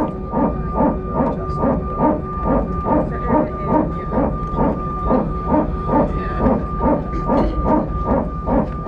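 Airbus A320 hydraulic power transfer unit (PTU) barking in a steady, even run of pulses, about two and a half a second, over the aircraft's steady hum. It cycles because engine 1 has not yet been started.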